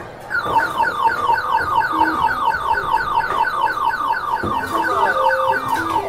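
Arcade game machine playing an electronic jingle: rapid warbling two-note beeps over a slower stepped beeping tune, with a single dull thud about four and a half seconds in.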